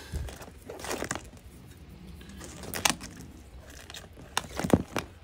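Fishing tackle being handled as a lead sinker is threaded onto the line: soft rustling with a few sharp clicks, the loudest near the end.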